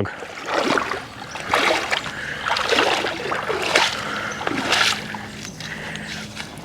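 Irregular splashing and sloshing of water as a hooked bass thrashes while snagged under a log.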